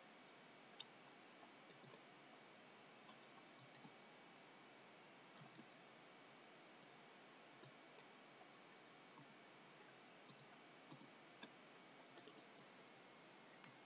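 Faint, sparse computer keyboard key clicks from typing, over quiet room hiss, with one louder click about eleven and a half seconds in.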